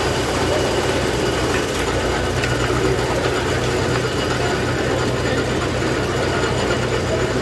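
Antique belt-driven corn chopper running steadily with its flywheel turning, over the low, even running of the engine that drives its flat belt.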